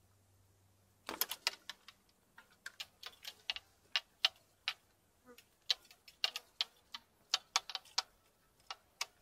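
Sharp, irregular clicks, about two to four a second, starting about a second in.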